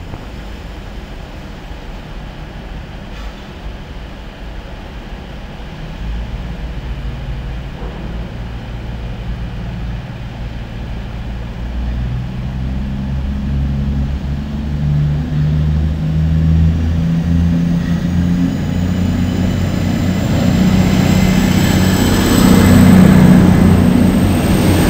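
CrossCountry Voyager diesel multiple unit running into the platform, its underfloor diesel engines humming low and growing louder as it draws alongside, with a faint rising whine near the end.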